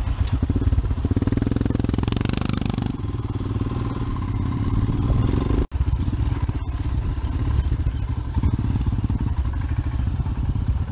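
Royal Enfield Himalayan's single-cylinder engine running at low speed over a rough dirt track, its firing pulses steady throughout, with a momentary drop-out in the sound a little past halfway.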